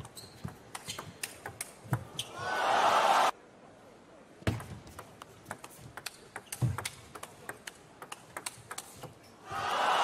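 Table tennis ball clicking off bats and the table in quick rallies. A crowd cheers loudly for about a second around two seconds in, cut off abruptly, and starts cheering again near the end.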